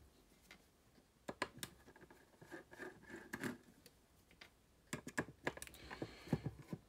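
Small T6 Torx screwdriver turning out the top-cover screws of a Conner 2.5-inch laptop hard drive: faint, irregular clicks and scratches, busier in the last two seconds.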